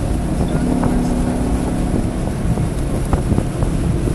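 Car engine running hard at speed, with wind noise and a few sharp pops scattered through it. The engine is misfiring on cylinders 1, 3 and 4.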